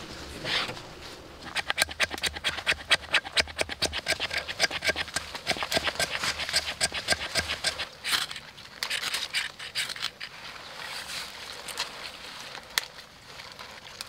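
Steel striker scraped rapidly down a ferrocerium (ferro) rod over a pile of wood-shaving tinder, about five strokes a second, then a few slower, sharper strikes that throw sparks until the tinder catches near the end.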